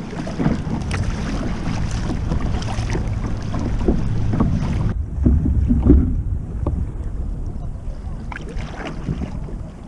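Wind buffeting the microphone with water lapping and splashing against a kayak hull while under way. The higher hiss drops away abruptly about halfway through, leaving mostly the low rumble and splashes.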